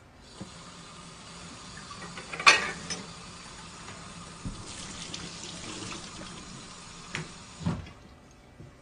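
Kitchen mixer tap running water into a sink, shut off near the end. A sharp clank about two and a half seconds in is the loudest sound, and there are two smaller knocks shortly before the water stops.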